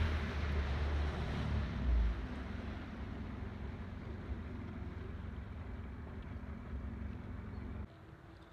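Bass boat's outboard motor running as the boat slows, with wind on the microphone easing off over the first couple of seconds and a brief low bump about two seconds in. The engine sound drops away sharply near the end as the boat comes off plane to stop and fish.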